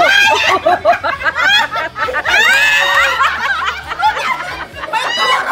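A group of people, children among them, laughing and shrieking excitedly together, with high-pitched squeals about two and a half seconds in.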